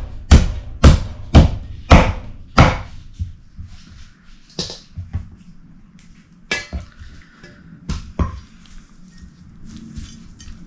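Repeated sharp chopping knocks, about two a second for the first three seconds, then a few scattered single knocks.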